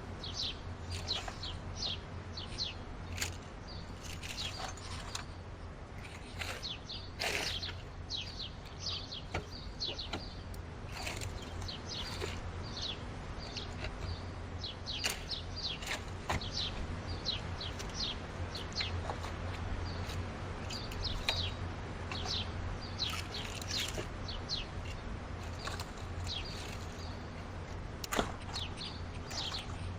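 Small birds chirping busily in quick, repeated short notes, over a steady low hum.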